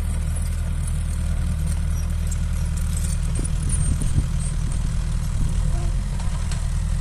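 Excavator's diesel engine running steadily with a low hum, with a few short knocks about halfway through.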